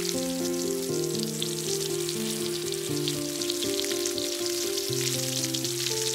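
Background music of slow, sustained notes and chords changing in steps, over a steady crackling hiss.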